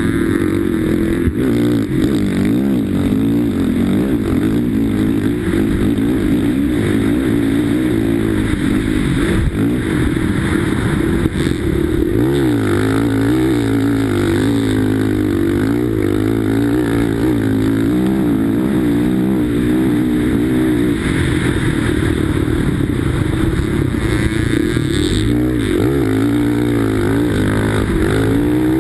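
Sidecarcross outfit's motorcycle engine running hard under race throttle, heard up close from the machine itself, its pitch rising and falling continually with throttle and gear changes.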